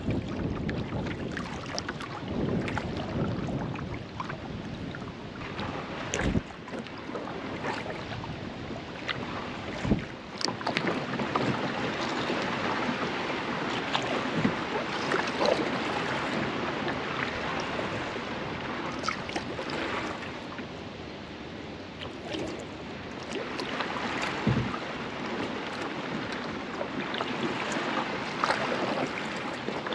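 Kayak being paddled: water swishing and splashing off the paddle blades with each stroke, with a few sharp knocks along the way.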